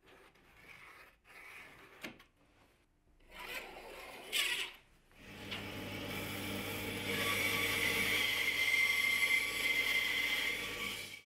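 Light handling and scraping sounds of a steel rule and workpiece on a wooden bench. Then a bandsaw runs and rips a hardwood strip lengthwise: a steady motor hum under a high, hissing cut that gets louder as the blade bites into the wood, and it cuts off suddenly near the end.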